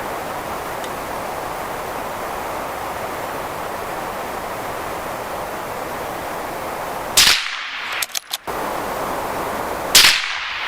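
Two shots from a suppressed CZ 455 .22 LR rifle firing CCI Stinger rounds, about seven seconds in and again about two and a half seconds later, over a steady background hiss.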